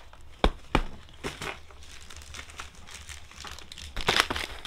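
Plastic packaging crinkling and rustling as wrapped packs and boxes of supplies are handled, with two short sharp knocks about half a second in and a louder rustle near the end.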